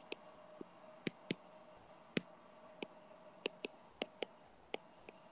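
Stylus tip tapping on a tablet's glass screen while handwriting, about a dozen irregular sharp clicks, over a faint steady hum.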